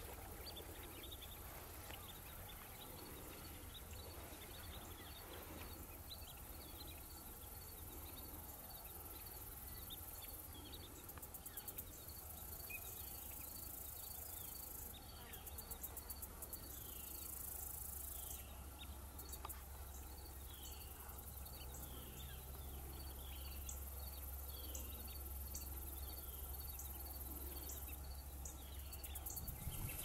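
Marsh field ambience with birds calling: a steady run of short, high chirps about twice a second, joined from halfway on by repeated down-slurred whistles. Behind them is a high buzzing hiss that swells in and out, over a low steady rumble.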